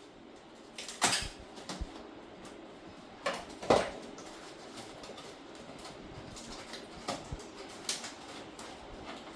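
Knocks and clatters of refrigerator parts being handled during the repair: a sharp one about a second in, a louder double knock just before four seconds, and lighter taps near the end, over faint steady background noise.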